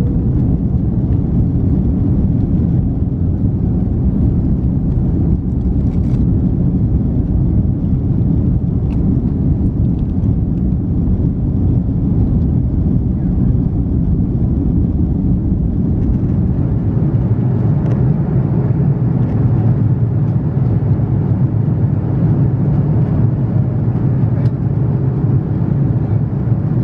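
Steady rumble of an Airbus A330-300 in its climb after takeoff, engine and airflow noise heard inside the cabin. About two-thirds of the way through, the deepest part of the rumble thins while the mid-low hum grows.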